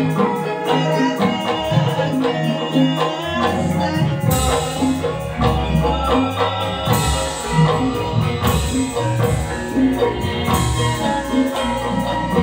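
Javanese gamelan music: metallophones ring out a melody over hand drums keeping a steady beat.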